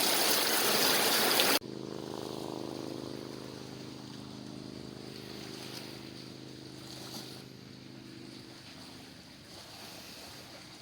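A loud rushing noise cuts off abruptly about a second and a half in. A steady, distant motor drone follows and fades out near the end.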